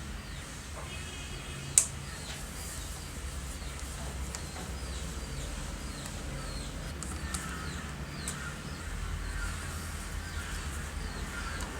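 Small birds chirping over and over in short, high, downward-sliding notes over a steady low hum, with lower wavering calls in the second half. One sharp click about two seconds in.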